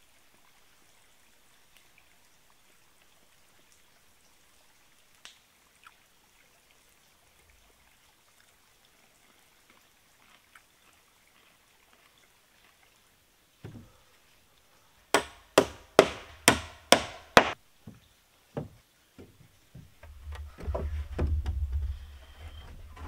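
Very quiet at first, then a knock followed by six loud, sharp strikes of a tool on timber, about two a second, then a few lighter knocks. A low rumble comes in near the end.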